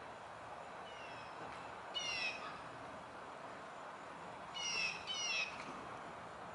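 A bird giving short, falling calls. There is a faint one about a second in, a louder one about two seconds in, and then two in quick succession near the end.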